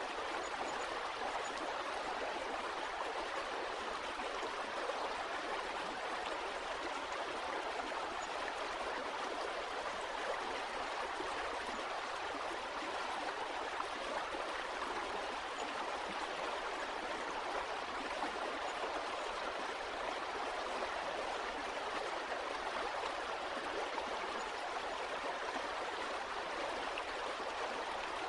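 Stream water running and babbling steadily, an even rushing wash with no breaks.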